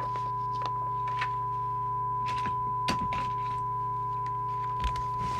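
A steady single-pitch test tone comes from the CB radio receiver's audio output while it takes a test signal during receiver alignment, over a low steady hum. A few faint taps or clicks are heard.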